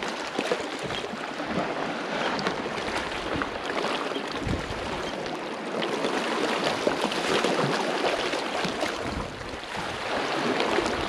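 Sea water washing and lapping against rocks, a steady rush with scattered small splashes.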